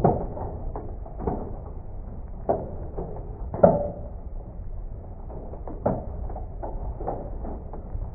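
Small hailstones hitting a window and the building, played back slowed down, so each hit is a deep, drawn-out thud over a steady low rumble. The hits come at irregular intervals, and the loudest lands a little after three and a half seconds.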